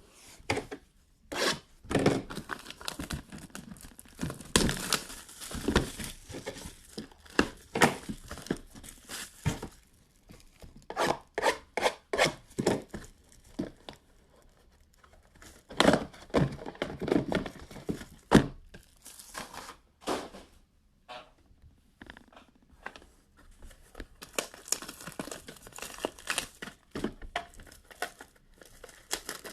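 Plastic wrapping being torn and crumpled off cardboard card boxes, in irregular rips and crinkles mixed with light knocks of boxes being handled, with a couple of brief pauses.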